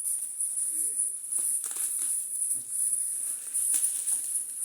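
Light handling noises, scattered rustles and clicks from the date package being handled, over a steady high-pitched whine.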